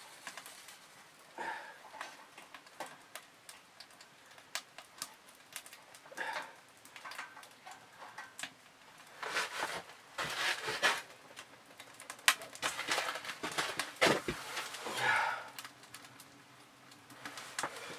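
Irregular clicks, knocks and rustling of split firewood and a small wood stove being handled while a fire is lit, with a few louder noisy stretches about halfway through and near the end.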